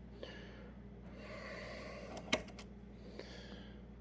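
A person's faint breathing close to the microphone, with a single sharp click a little past halfway.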